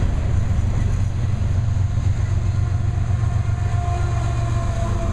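Double-stack container train rolling past, a steady, loud, low rumble of freight cars on the rails, with a faint thin tone coming in near the end.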